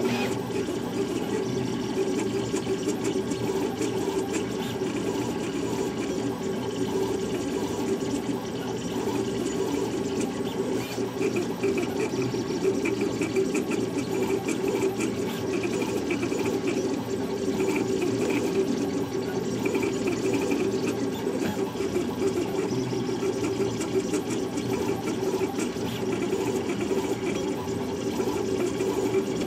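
Large-format 3D printer at work: the stepper motors driving the print head and gantry make a steady mechanical whir and buzz, with a faint higher whine joining in about a third of the way through for several seconds.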